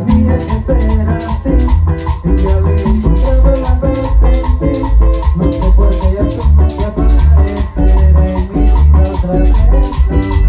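Chanchona band playing a cumbia, with a heavy upright bass line under the melody and shaker-like percussion ticking steadily about four times a second.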